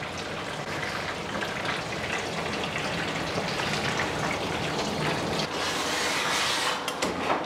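Water running and splashing in a stainless-steel grooming tub while a lathered dog's wet coat is scrubbed by hand. The hiss grows louder and brighter about five and a half seconds in.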